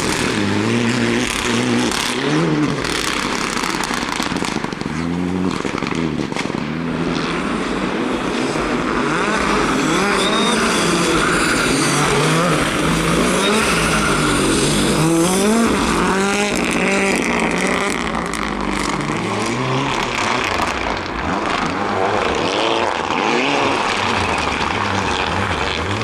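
Rally car engines revving hard, pitch climbing and dropping again and again as the drivers shift gears and brake and accelerate through the stage.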